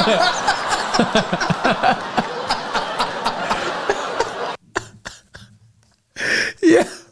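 Stand-up comedy audience laughing after a punchline, cut off suddenly about four and a half seconds in. Then two men close to the microphone laugh and chuckle.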